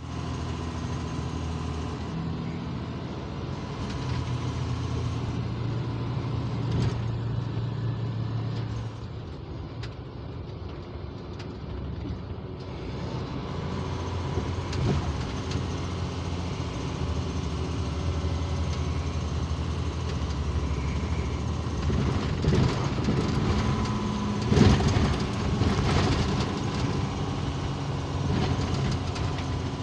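Semi-truck's diesel engine running, heard from inside the cab while driving, its note shifting in steps as the speed changes. A few short knocks and rattles come in the last third, the loudest about 25 seconds in.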